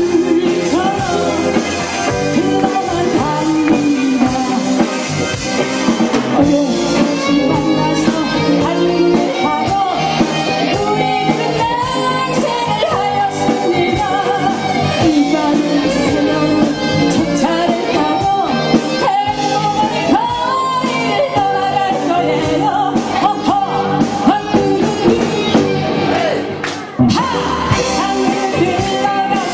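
Live rock band of electric guitars, bass and drum kit playing loud through a PA while a woman sings the lead of a Korean popular song. The band dips briefly near the end, then comes back in.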